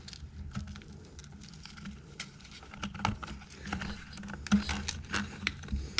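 Scattered light clicks and knocks of a plastic air-cleaner cover, mounting bolts and carburetor parts being handled and fitted together by hand, over a steady low hum.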